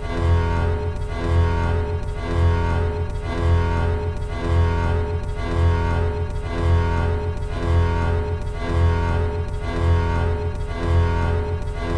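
Four Emergency Alert System (EAS) alarm tones played over one another, making a sustained, dissonant chord of steady electronic tones. A low drone beneath pulses evenly a little faster than once a second.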